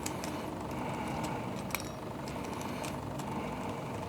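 Scattered light clicks and small clinks of the Rode NTH-100 headphone's hinge parts being handled and worked loose, over a steady faint background hiss.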